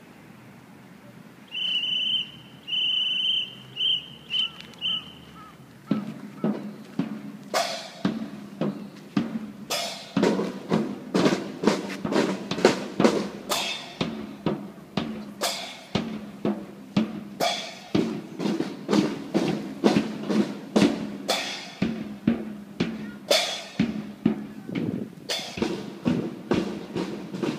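A whistle blown in five blasts, two long and then three short. Then steady drumming with sharp strikes, about two beats a second, from the kindergarten's sports-day practice.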